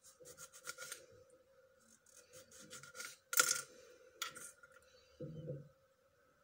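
Knife slicing a lemon into rounds: groups of short taps and clicks, the sharpest about three and a half seconds in, then a duller knock, over a faint steady hum.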